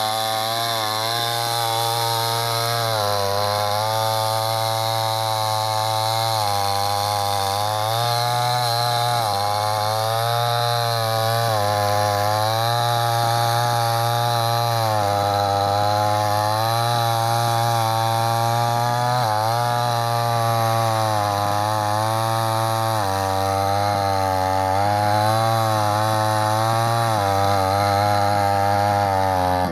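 Chainsaw running continuously while cutting wood, its pitch dipping and climbing back every few seconds as the chain bites in and eases off.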